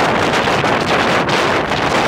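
Loud, steady wind rushing and buffeting on the microphone of a moving open 1942 Ford GPW jeep, with the jeep's running noise underneath.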